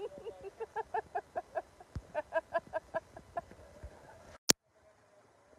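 A person laughing hard in a quick run of "ha" pulses, about five a second, dying away about three and a half seconds in. A second later a single sharp click, the loudest sound here, as the audio cuts out.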